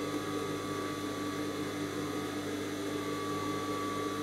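Industrial sewing machine running with a steady motor hum.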